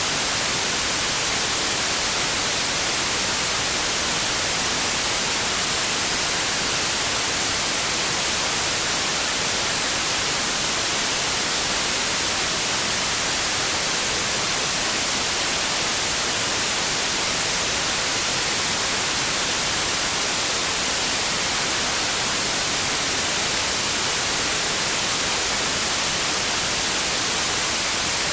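Steady white noise: an even, unchanging hiss across the whole range, brightest in the highs.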